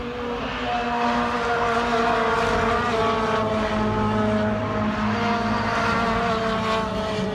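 Engine noise: several steady tones that slowly fall in pitch, swelling about a second in and holding at that level.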